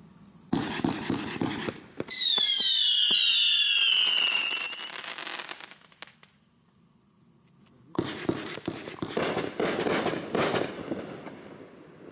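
Pyroland False Flag 500-gram, 24-shot fireworks cake firing: a quick string of shots, then a loud high whistle of several tones sliding down in pitch for about three seconds. After a short lull, another volley of shots and bangs starts about eight seconds in and fades.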